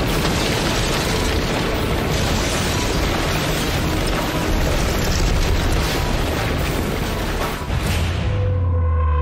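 EF4 tornado winds tearing at a house, heard from inside as a loud, dense, unbroken rush of wind and debris. About eight seconds in it gives way to a deep boom and held musical tones of a title sting.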